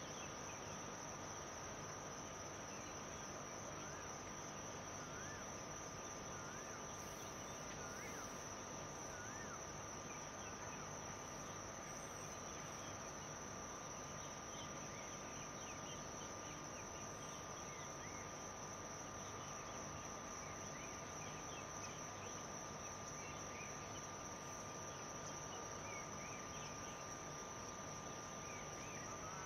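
Steady, unbroken high-pitched insect chorus, with a few faint short chirps scattered through it.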